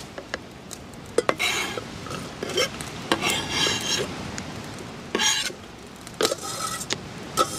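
Chef's knife scraping chopped onion off a plastic cutting board into a small stainless steel pot, in a series of short scrapes with the blade clinking against the pot several times.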